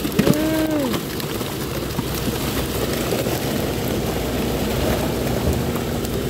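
Steady drone of a fishing boat's engine and deck machinery, with occasional knocks of salmon and handling against the metal sorting bin. Near the start there is a short pitched call that rises and falls.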